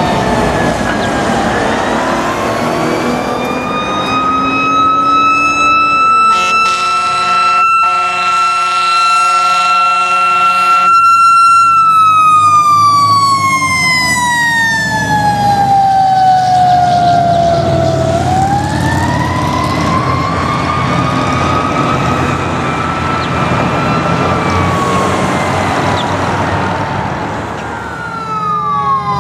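Fire engine siren wailing in long slow cycles: the pitch climbs, holds at its peak, falls away, then climbs and falls again. While the siren holds its peak, a horn sounds in a run of short blasts.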